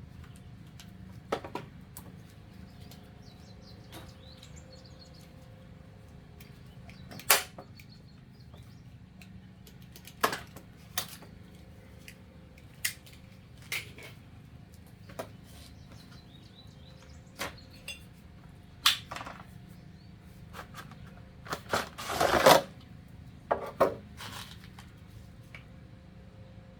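Hard objects being handled: scattered sharp clicks and knocks, about one every second or two, with a quick run of them and a short scrape a little past the two-thirds mark.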